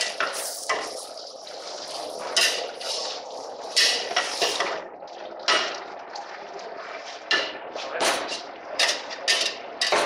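Metal spatula scraping and clanking against the sides of a stainless steel pot while stir-frying vegetables, in irregular strokes about once or twice a second over a steady hiss.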